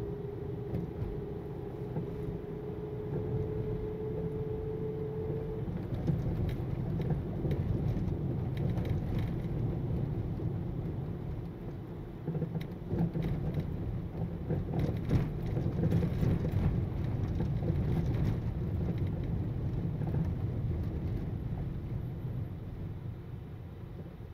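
Car driving: a steady low rumble of engine and tyre noise, with a faint whine that rises slightly and stops about five seconds in. Scattered knocks and thumps come through the middle stretch.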